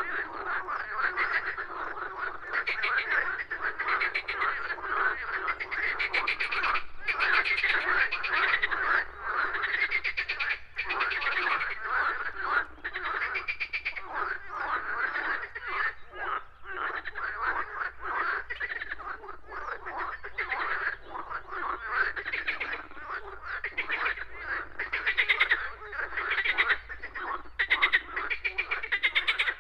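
A dense chorus of many frogs croaking, their pulsed calls overlapping continuously.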